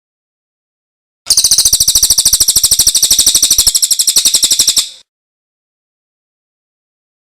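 A songbird's loud, rapid trill of evenly repeated high chips, lasting about three and a half seconds and starting a little over a second in, from a recorded pijantung and cililin song-tutor mix.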